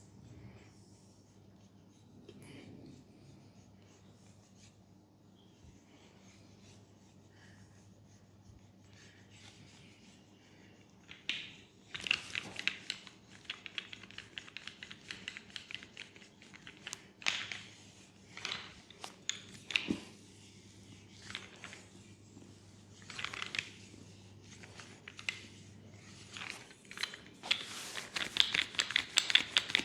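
Quick, irregular scratchy rustling strokes, like friction or crinkling. They start about a third of the way in and grow denser and louder near the end. Before that there is only a faint low hum, which drops away shortly before the end.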